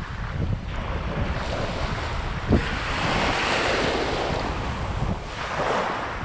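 Small surf waves washing up onto a sandy beach in two swelling rushes, with wind buffeting the microphone. A brief thump about two and a half seconds in.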